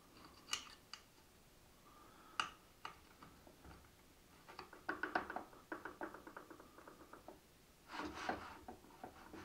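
Faint small metal clicks and ticks as an Allen key works the expansion screws in the sled's aluminium miter bar, tightening them to spread the bar and take up slop in the miter slot. A few single clicks come first, then a quick run of ticks in the middle, with a short scrape near the end.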